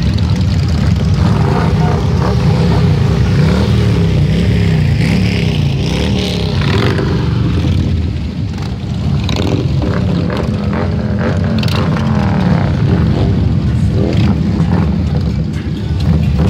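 A procession of cruiser motorcycles and motorcycle trikes riding past at low speed, their engines rumbling together. Near the middle, one engine's pitch rises and falls several times as its throttle is worked.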